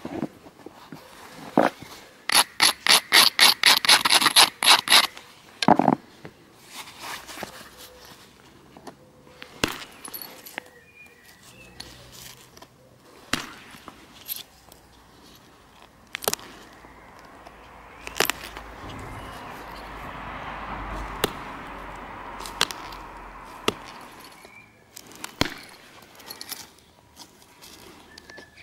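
Flint being knapped: a quick run of about fifteen scraping strokes of stone on the flint's edge, then scattered single sharp clicks as flakes come off.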